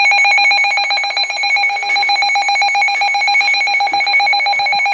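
Emergency Alert System attention signal: a loud, steady electronic alarm tone with a fast buzzing flutter, announcing a new severe weather warning.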